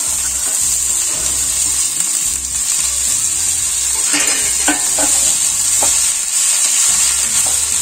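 Chopped tomato and greens sizzling in a kadai on a gas burner as green peas are tipped in, with a steady hiss. A spatula stirs the vegetables, knocking against the pan a few times about four to six seconds in.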